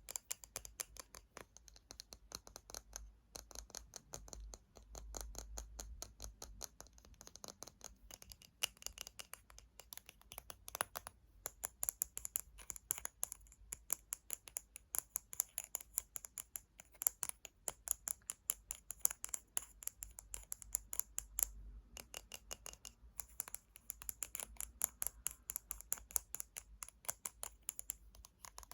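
Fingernails tapping quickly on hard plastic and glass objects, a dense run of sharp clicks with a few brief pauses.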